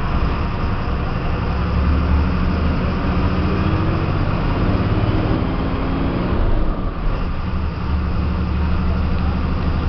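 Diesel engine of a Caio Apache VIP bus on a Volkswagen 17.210 chassis, heard from inside the cabin, pulling as the bus drives. The revs climb, then drop briefly about seven seconds in, as at a gear change, and the engine pulls again.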